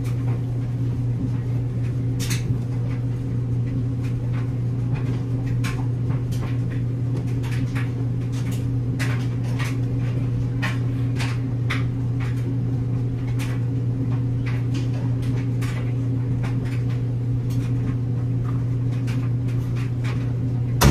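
Steady low hum of a running laundry machine, with frequent short clicks and knocks as towels and sheets are handled and loaded.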